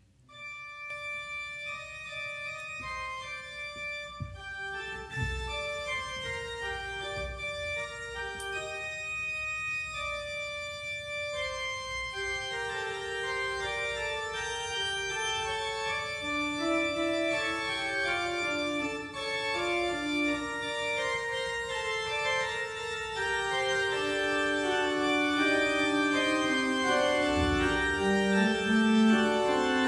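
Organ music: a slow melody of long held notes that starts a moment in and moves from a higher register down into a lower one, growing gradually louder.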